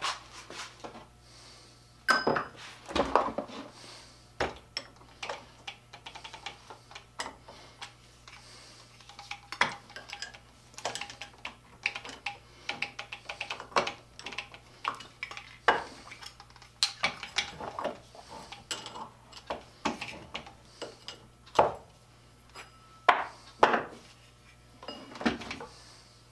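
Irregular metal clinks and light knocks of a hole saw on its drill arbor being handled as the cut wooden plug is worked out of the saw.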